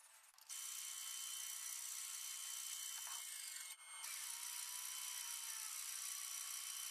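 A small high-speed power tool running steadily with a high-pitched whine and hiss. It starts about half a second in and cuts out briefly just before the middle before running on.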